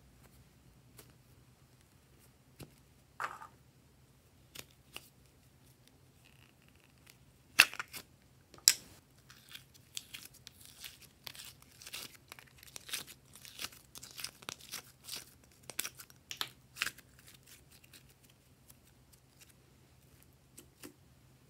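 Blue slime being pulled from a plastic bottle-shaped container and stretched by hand: two sharp snaps about eight seconds in, then a quick run of small sticky crackles and snaps as the slime is pulled apart, dying away a few seconds before the end.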